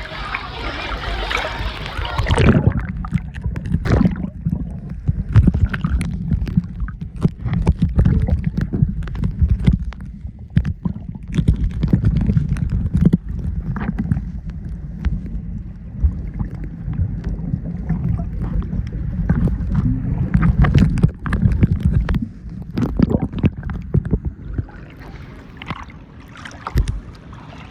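Water sloshing and gurgling around the microphone, heard as a heavy low rumble with many scattered knocks and clicks. A brighter hiss in the first couple of seconds gives way to the rumble.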